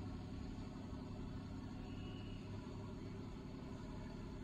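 Steady low drone of a fishing boat's engine running.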